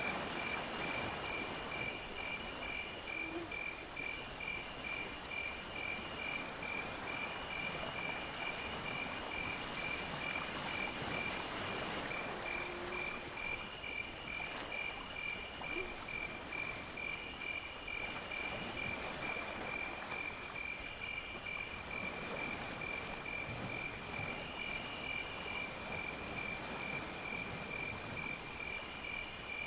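Insect chorus: a cricket trilling with rapid, even pulses, over a very high-pitched insect buzz that comes in repeated phrases of a second or two with short gaps. A few brief, faint low frog croaks.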